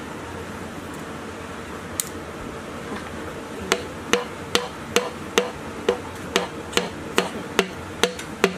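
Wooden stick tapping the valve head in a diesel engine's cylinder head: a single knock about two seconds in, then a steady run of about a dozen short, ringing knocks, a little over two a second.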